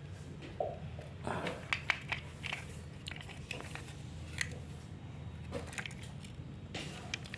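Irregular clicks, knocks and crinkly crackling from plastic parts and packaging being handled, over a low steady hum.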